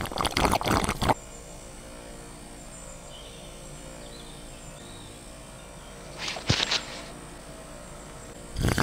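Hands handling small parts of a homemade slingshot gun: short clusters of clicks and rustles from the metal tube and wooden ruler, three times, over a steady faint hiss.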